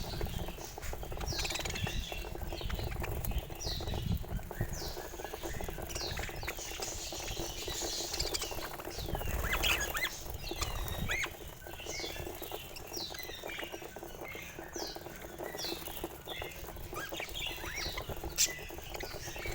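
Several budgerigars chirping and chattering: many short, sharp calls that drop in pitch, coming thick and fast over a constant scratchy rustle.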